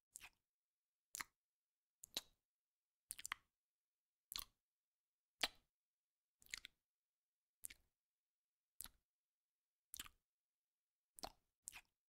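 Land snail eating cucumber flesh, making short wet smacking clicks about once a second, with silence between them.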